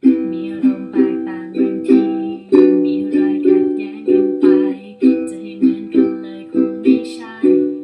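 Ukulele strummed steadily, about two strums a second, switching back and forth between two chords: the song's opening C major 7 and G major 7.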